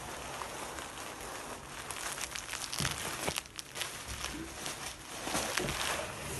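Plastic bubble wrap crinkling and rustling as it is handled and unwrapped, with a steady run of small crackles.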